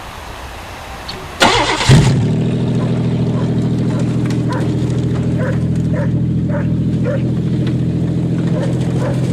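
Buick 3.8 V6 engine in a badly crushed car cranked briefly by the starter about a second and a half in, catching almost at once and then running steadily.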